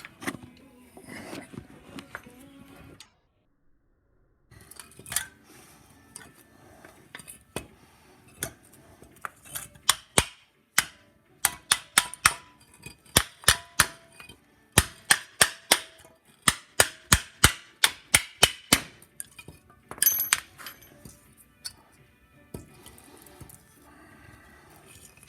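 Sharp metallic clicks and clinks from steel tools and brake hardware being worked on, coming in quick runs of about three to five a second through the middle stretch. The hardware is the rusty, seized caliper hardware of a truck's disc brake.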